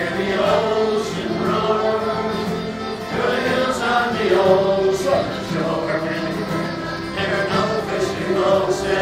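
Button accordion playing a lively folk tune with a steady bass drone, an acoustic guitar strumming along, and voices singing together.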